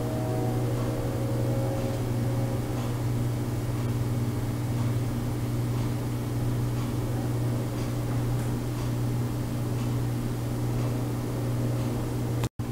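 Steady low hum with a few steady higher tones over a faint hiss. It cuts out to silence for a split second near the end.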